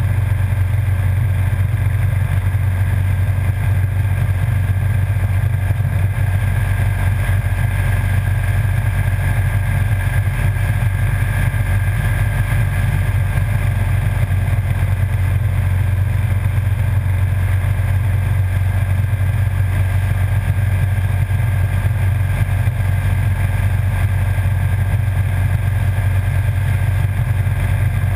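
Motorcycle cruising at a steady speed on a paved road: a constant low drone of engine and wind noise, with no change in pace.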